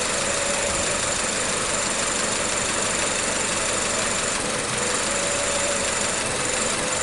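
2007 Nissan Sylphy's four-cylinder engine idling steadily, unrevved. The engine has a misfire on cylinder 4 that shows when the throttle is snapped rather than at idle.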